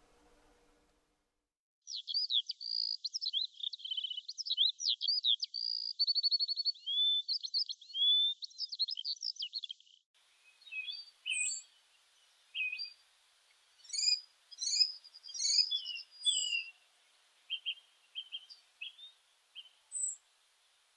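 Songbirds singing: after a near-silent start, a rapid, varied song runs from about two seconds in until about ten seconds, then gives way to scattered short chirps and whistled calls from several birds.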